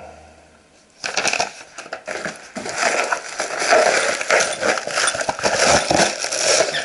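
Plastic wrapping film crinkling and crackling loudly as film-wrapped parts and a plastic-covered piece of cardboard are handled, with many sharp clicks and taps; it starts about a second in.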